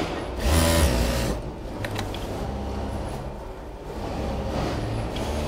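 Industrial sewing machines running on a production line: a steady motor hum with stitching in short bursts, the loudest burst about half a second in and lasting under a second, plus a few sharp ticks around two seconds in.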